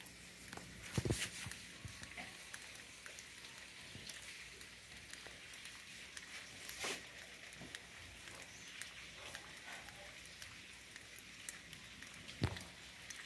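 Light rain falling: a faint, steady hiss with a few scattered sharp drips or taps.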